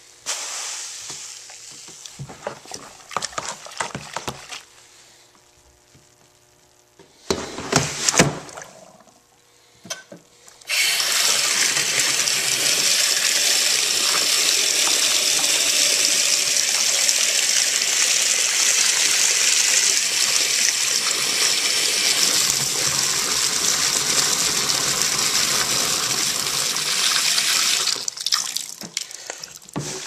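Water running hard onto an electronic air cleaner's collector cell in a tub of soapy water: a steady rushing hiss that starts suddenly about a third of the way in and stops near the end. Before it come scattered knocks and splashes as the filters are handled in the water.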